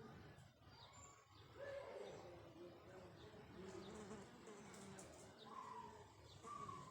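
Faint, soft parrot vocalising: low mumbled chatter with two short whistled notes near the end.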